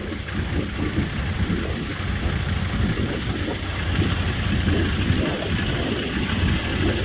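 Semi-truck engine and road noise heard inside the cab while driving, a steady low rumble, with strong wind buffeting the truck.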